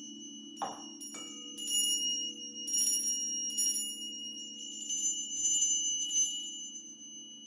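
Crystal singing bowls ringing in a steady low hum that wavers slowly, while bright high bell-like chimes are struck about six times over it, fading out near the end.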